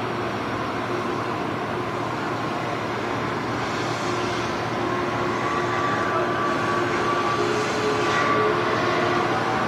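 Boat engines running steadily, a continuous mechanical noise with a faint steady whine joining about halfway through.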